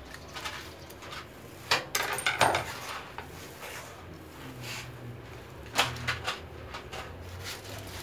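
Sharp metal clicks and clatter of parts being handled and fitted by hand on an industrial buttonhole sewing machine head, coming in a few clusters: the loudest about two seconds in and again around six seconds.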